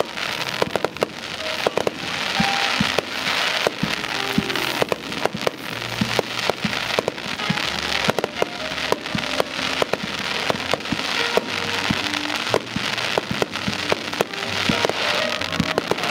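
Aerial firework shells bursting in rapid succession, many sharp bangs with crackling, while jazz music plays alongside.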